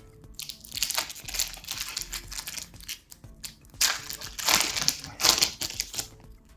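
Foil Pokémon booster pack wrapper crinkling as it is torn open and handled, in two spells of about two and a half seconds each.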